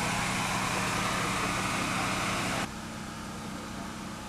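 A vehicle engine idling steadily under a broad hiss. About two and a half seconds in, the hiss cuts off abruptly, leaving a quieter, steady low engine hum.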